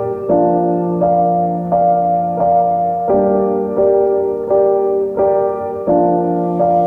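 Background piano music: sustained chords struck at an even pace, a new chord about every 0.7 seconds.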